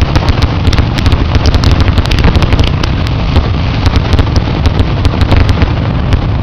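Fireworks display in a dense barrage: shell bursts overlapping into a continuous rumble, with many sharp cracks and crackles several times a second, loud enough to overload the microphone.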